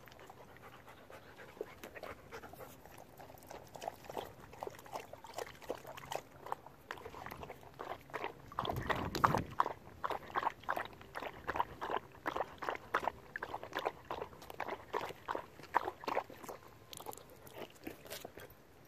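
Husky lapping water from a collapsible bowl: a soft, steady run of quick wet laps that grows louder midway and stops near the end.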